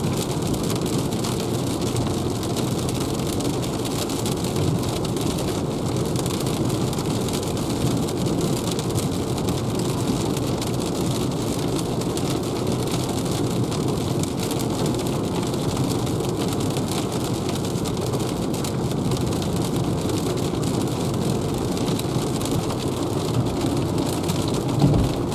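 Heavy rain falling on a car's windscreen and roof, with wet-road tyre noise, heard from inside the cabin of a Renault ZOE electric car, so there is no engine sound. Large drops make a steady noise.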